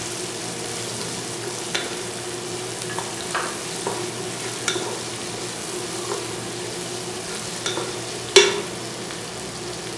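Sliced onions, cashews and bay leaves frying in oil in a nonstick pot with a steady sizzle, the onions half-fried. A wooden spatula stirring them knocks and scrapes against the pan now and then, loudest a little after eight seconds in.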